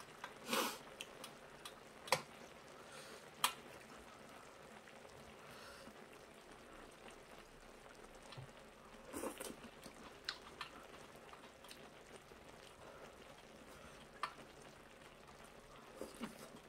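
Close-up eating sounds of a person chewing braised kimchi and pork, with a couple of louder wet mouth noises and a few sharp clicks of metal chopsticks against the dishes.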